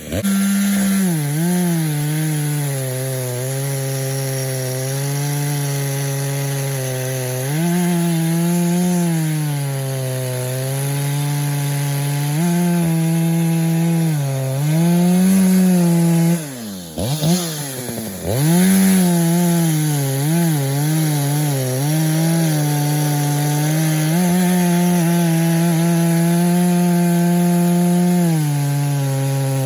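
Echo CS-590 two-stroke chainsaw running at full throttle while cutting wood, its pitch sagging and recovering as the chain loads up in the cut. Twice the revs fall off sharply and climb back, right at the start and about 17 seconds in. The carburettor is tuned on the rich side.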